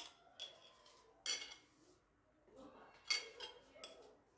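Spoon clinking and scraping against a bowl as the last of the chermoula is spooned out over the tray: a few short, sharp clinks at irregular intervals.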